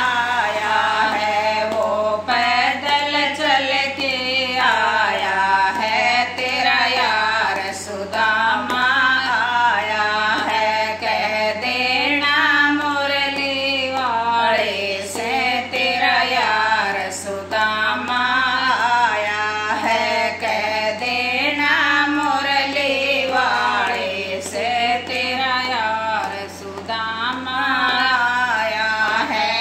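Two women singing a Hindi devotional bhajan together, a long drawn-out melody sung without pause.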